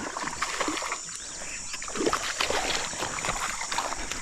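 Irregular clicks, scrapes and light water sloshing as a small sooty grunter is landed and handled on a fishing line.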